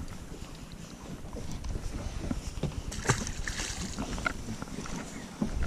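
Gusty wind buffeting the microphone over choppy water, with small waves lapping against the boat's hull and a few faint clicks. A louder low rumble sets in near the end.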